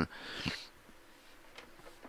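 A soft breath from the man reading aloud, about half a second long right after he stops speaking, then near silence with faint room tone.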